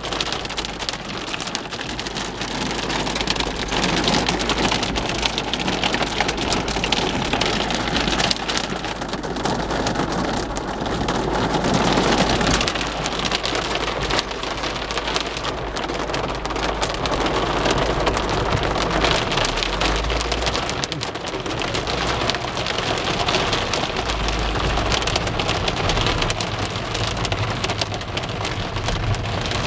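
Hail and heavy rain drumming on a car's roof and windscreen, heard from inside the car as a dense, unbroken patter of small hits.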